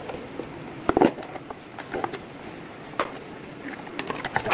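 Cardboard shipping box being opened by hand: a knife slitting the packing tape, then the flaps pulled apart, giving scattered scrapes and sharp knocks, the loudest about a second in and a quick run of them near the end.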